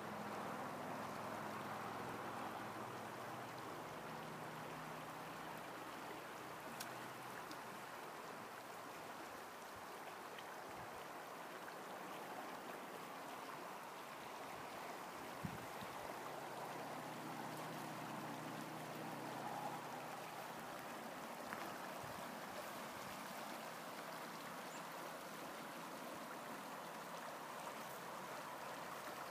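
Shallow, fast trout river running over riffles: a steady rush of moving water, with a few faint clicks.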